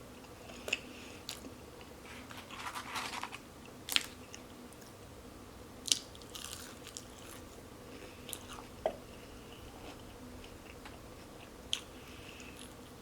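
A person eating fast food close to the microphone: biting and chewing, with scattered sharp wet mouth clicks and a short crunchy stretch about three seconds in.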